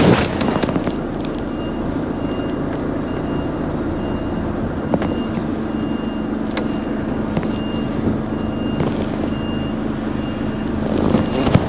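Articulated lorry's diesel engine running steadily while the lorry reverses, its reversing alarm beeping about once a second. A short rush of hiss at the start and again near the end.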